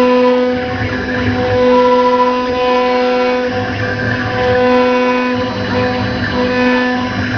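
Background instrumental music with sustained notes that change every second or two over a pulsing low bass.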